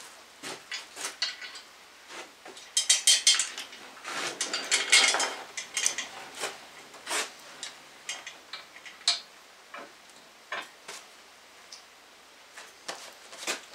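Scattered clicks, knocks and clinks of metal parts being handled at an engine on an engine stand as it is turned over, with a quick rattle about three seconds in and a scraping clatter a second or so later.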